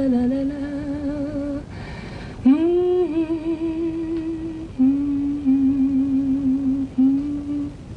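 A young woman humming a slow serenade tune without words, in long held notes with vibrato, pausing for breath about two seconds in and ending near the end.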